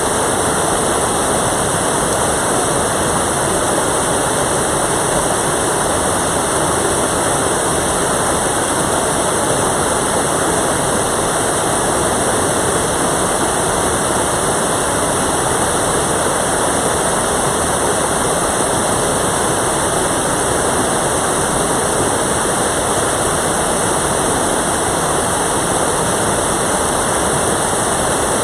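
Mountain valley stream rushing, a steady, unbroken rush of water.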